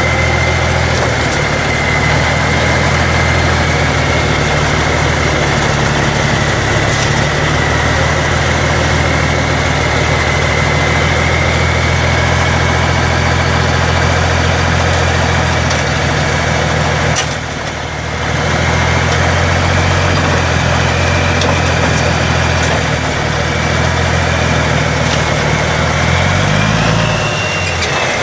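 Cummins six-cylinder turbo diesel engine of a 1982 Oshkosh P23236 dump truck idling steadily, with a steady high whine over it, while the hydraulics work the underbody grader blade. There is a brief dip with a sharp knock about two-thirds of the way through, and the engine speed rises briefly near the end.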